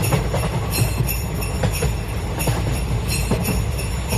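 Sleigh bells jingling continuously over a low rumble.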